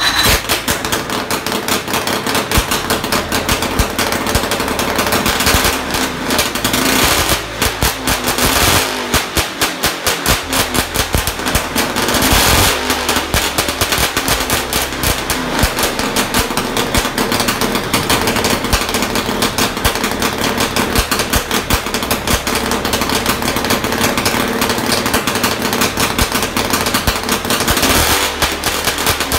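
Two-stroke engine of a homemade helicopter running on test through unsilenced expansion-chamber exhausts: a rapid, crackling stream of firing pulses, extremely loud, with a few brief swells in level. There are no mufflers yet.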